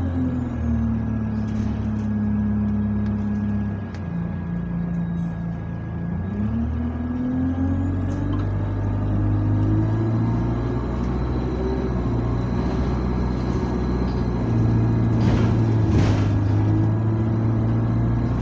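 Engine of an Alexander Dennis Enviro200 single-deck bus heard from inside the saloon while driving: the engine note falls about four seconds in, then rises again and holds steady as the bus picks up speed. A thin, steady high whine runs underneath, and a brief rattle comes about fifteen seconds in.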